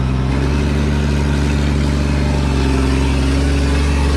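Caterpillar 322C hydraulic excavator's diesel engine running steadily, with a slight rise in pitch over the first couple of seconds.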